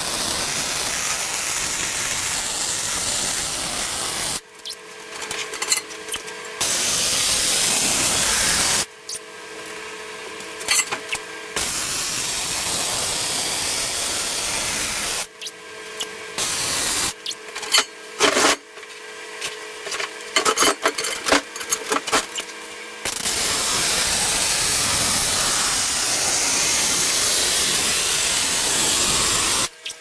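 Miller MIG welder's arc crackling and hissing on the steel plate of a small backhoe bucket. There are four long steady runs, and between them stretches of short stop-start bursts and gaps, in sped-up footage.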